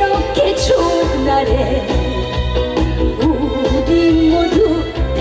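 A trot song performed live: band accompaniment with a steady beat and a melodic line that bends and wavers over it, with a singing voice.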